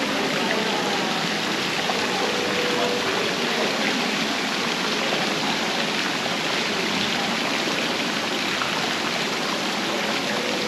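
Water from small fountain sprays splashing steadily into an ornamental pond.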